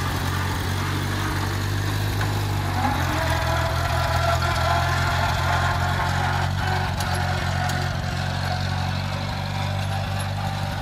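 A 1948 Farmall Cub's four-cylinder flathead engine running steadily as the tractor drives along.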